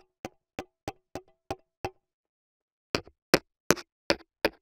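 Piezo-disc contact microphones picking up a pen tip tapping directly on their discs, heard as sharp clicks about three a second. The first run of about seven taps, on the single-disc unbalanced mic, is fairly quiet. After a short pause, five taps on the two-disc balanced mic come through clearly louder, showing its stronger signal.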